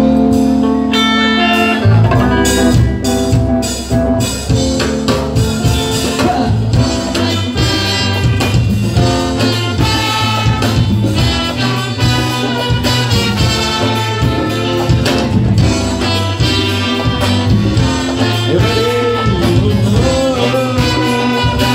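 Live ska band with a horn section playing loudly. The band holds a chord for about two seconds, then kicks into a fast, driving ska groove with drums, guitar and brass.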